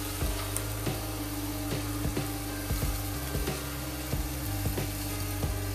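Onion-and-spice masala sizzling and crackling in a steel kadhai over a high gas flame as tomato puree is poured in. A steady low hum runs underneath.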